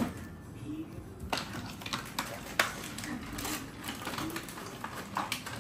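Irregular small clicks and taps of hard plastic as a small plastic Gundam figure is handled and turned over in the hand, with one sharper click about two and a half seconds in.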